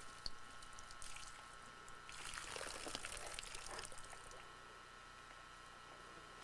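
Faint liquid sound: a brief pour or splash of water with fine crackling, starting about two seconds in and lasting a couple of seconds, with a few small clicks around it.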